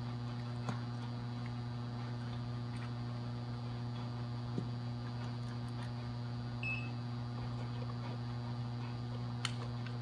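Magnetic mercury vapor autotransformer ballast humming steadily at mains frequency while it runs two 150 W high-pressure sodium lamps in series. A few faint clicks and one short, high beep about two-thirds of the way through.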